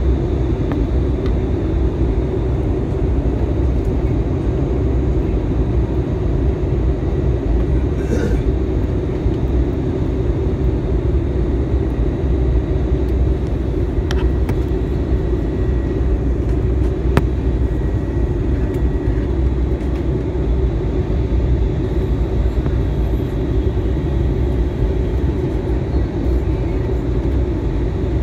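Steady low rumble of jet engines and rushing air inside an airliner cabin, as the plane descends toward landing. A few faint ticks sound over it.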